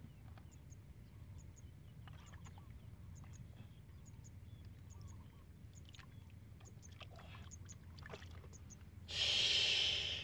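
Hands working in a small water-filled mud hole, with faint wet clicks and squelches over a low rumble. About nine seconds in, a loud splash of water lasts about a second, as water is thrown against a plastic basin.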